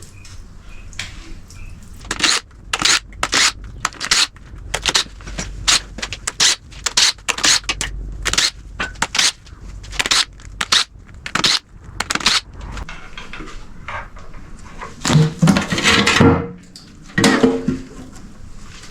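Metal hand tools and engine parts clanking and scraping, in an irregular series of sharp knocks, with a louder cluster of clattering near the end.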